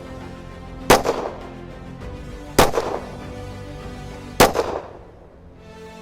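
Three 9mm pistol shots from a Canik METE SFT, one every second and a half or so, each with an echoing tail, over background music.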